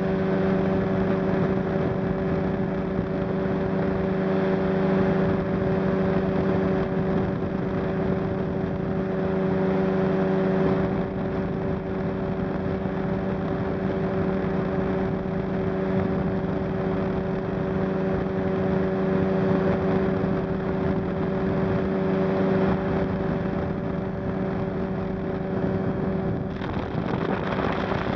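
Ultralight trike's engine and propeller droning at a steady, even pitch in flight, with wind rushing over the microphone; the wind rush grows a little near the end.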